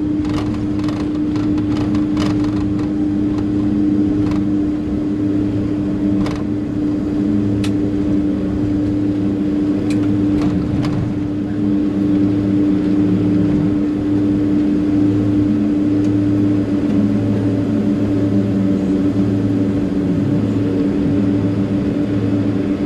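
Cabin noise inside a Boeing 767-300ER on the ground just after landing. The jet engines give a steady drone with a constant hum and a low throb that pulses about once a second, and a few faint clicks come in the first half.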